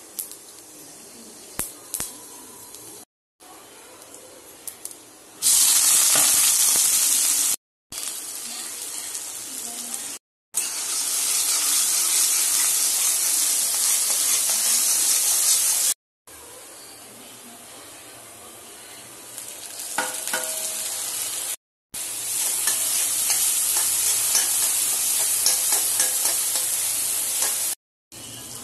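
Oil sizzling in a kadai as whole spices and chopped onions fry, with a spoon stirring and scraping in the pan. The sizzle breaks off and restarts several times, loud in some stretches and quieter in others.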